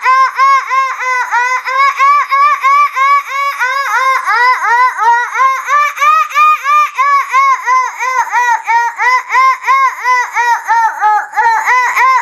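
A woman's voice making a rapid, unbroken string of high, arching chirps, each rising then falling in pitch, about four a second. This is vocal 'dolphin light language', a human imitation of dolphin calls.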